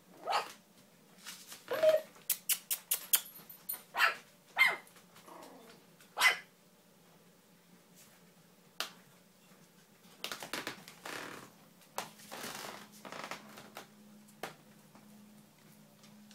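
Puppies barking in short, sharp, high yaps, scattered through the first half, with a quick run of clicks a couple of seconds in and some rustling later.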